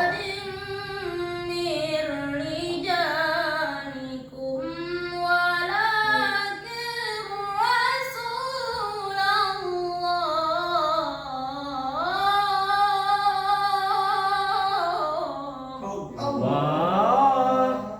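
A single high, young voice reciting the Qur'an in melodic tilawah style, drawing out long ornamented notes that glide and bend in pitch, in several long phrases.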